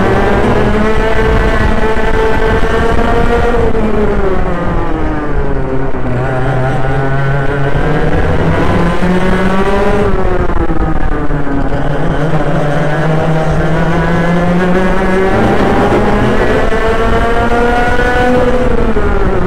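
Racing kart engines heard from inside the driver's helmet under full racing load. The pitch climbs for a few seconds along each straight and drops back into each corner, three times over.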